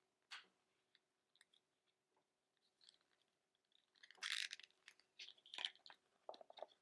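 Faint crinkling and clicking from the packaging and USB-C cable being handled. A cluster of sharp crackles comes about four seconds in, followed by scattered small ticks.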